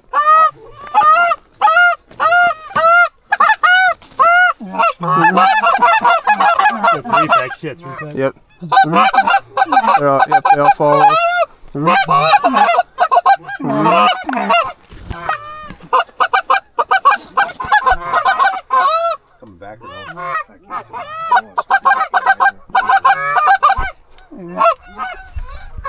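Goose calls blown hard and fast, imitating Canada goose honks and clucks: short single clucks at first, then several calls going at once in loud bursts of a few seconds, with a brief lull about three quarters of the way through.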